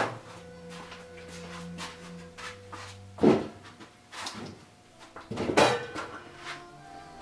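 A wooden board, a length of 1x3, knocking against pegboard and the bench as it is handled and lifted into place: a sharp wooden knock at the start, then louder knocks about three and five and a half seconds in, with a smaller one between.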